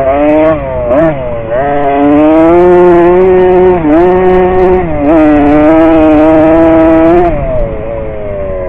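Dirt bike engine with an unsilenced straight-pipe exhaust, loud: blipped a few times, then held at high revs for several seconds with two brief dips, before the revs fall away near the end.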